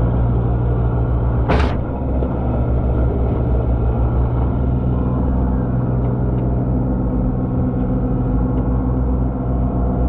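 Diesel engine of compact construction equipment running steadily under load, with a brief hiss about one and a half seconds in.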